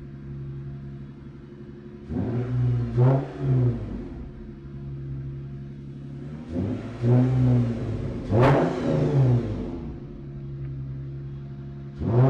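2017 Lexus IS 350's 3.5-litre V6 running on freshly fitted spark plugs, idling between several quick blips of the throttle that send the revs up and straight back down. The sharpest rev comes about eight and a half seconds in.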